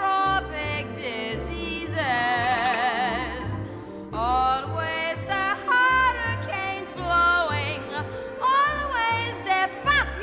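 Show-tune singing: a solo voice singing long notes with wide vibrato over orchestral accompaniment and a steady pulsing bass.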